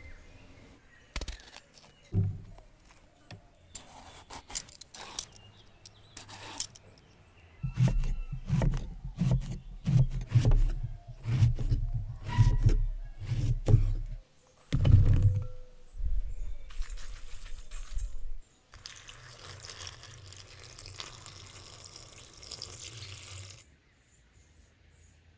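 A kitchen knife slicing eggplant into rounds on a wooden log board: a run of sharp cuts, each ending in a dull knock on the wood. Near the end, water pours for about five seconds into a glass bowl of eggplant slices, then stops suddenly.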